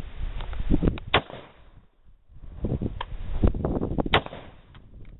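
DPMS Panther Arms "Oracle" AR-15 rifle in 5.56/.223 firing single shots, the sharpest about a second in and again about four seconds in, with smaller cracks around them.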